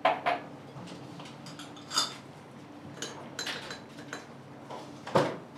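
Tableware clinking and knocking: several sharp clinks of dishes and utensils, the loudest at the start and about five seconds in, one ringing briefly. A faint steady hum runs underneath.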